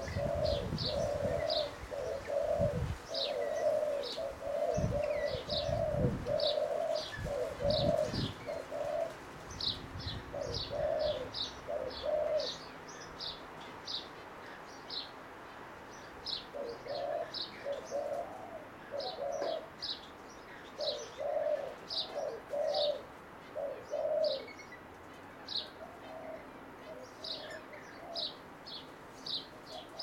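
Backyard birds calling out of sight: a low call repeated in quick runs, fading out for a few seconds in the middle, along with many short, high notes. Low rumbling thuds come in the first eight seconds.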